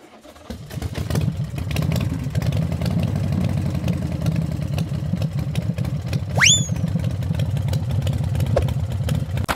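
Truck engine sound running steadily at idle, building up over the first second and cutting off suddenly at the end. A short rising whistle-like chirp sounds about six and a half seconds in.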